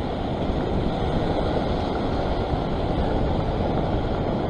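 Steady rushing of wind on the microphone mixed with sea surf washing across a rock platform.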